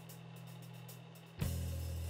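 Background music: low held bass notes that turn louder and fuller about a second and a half in.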